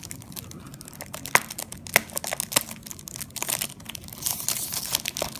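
Clear cellophane wrapper being picked at and peeled off a cardboard box: irregular crinkling and crackling with a few sharper clicks, growing denser near the end.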